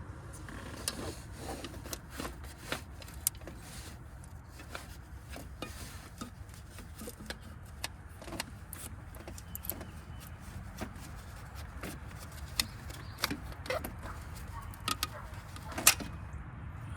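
Irregular light clicks and knocks, with a sharper knock near the end, over a low steady hum.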